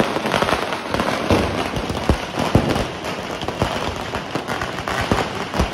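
Firecrackers going off in rapid succession: a dense crackle of small bangs with louder bangs standing out about every half second.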